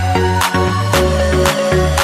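Background music with a steady beat of about two beats a second over a bass line.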